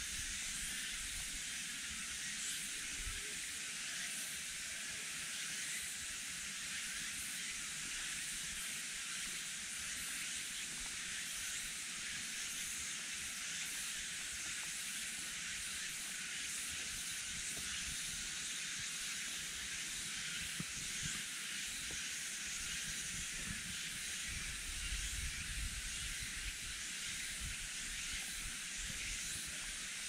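Steady, even high-pitched hiss of an insect chorus in a summer forest, running without a break.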